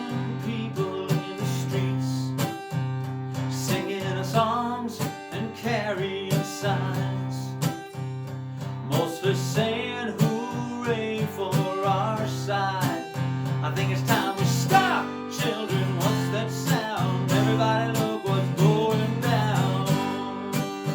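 Music: a guitar strummed steadily, with a melody line over the chords.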